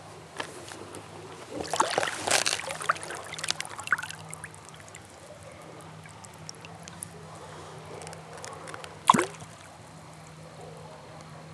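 Water splashing as a largemouth bass is lowered by hand into the river for release, with a flurry of splashes about two seconds in. About nine seconds in comes a single sharp splash as the fish kicks free and swims off.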